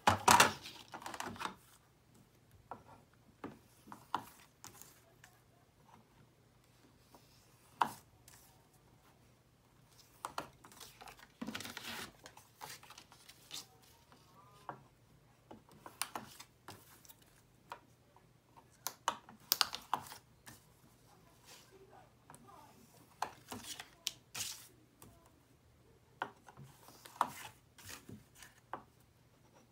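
Paper pockets being folded and creased on a scoring board with a bone folder: scattered rustles, taps and scrapes of the card and the tool, the loudest cluster at the very start.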